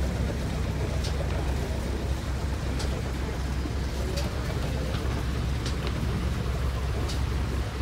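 Small hire motorboat's engine idling with a steady low rumble.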